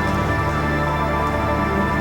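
Background music of steady, sustained chords.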